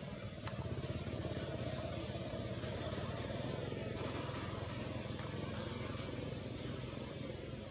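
A steady engine drone with a fast, even pulse, like a motorcycle or other vehicle running.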